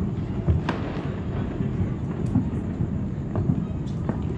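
Many fireworks going off at once: a steady rumble of booms with a few sharp cracks through it.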